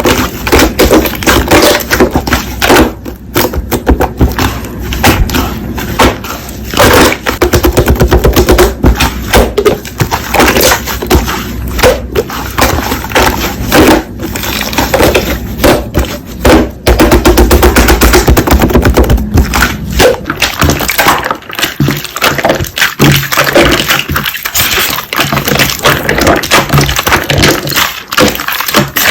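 Slime being squeezed, pressed and poked by hand, giving dense, irregular crackling and popping.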